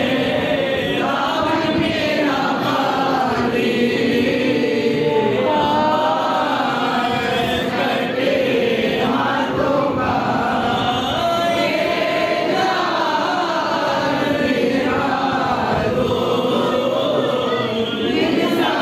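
A group of voices chanting a munajat, a devotional supplication, together, the melody rising and falling without a pause.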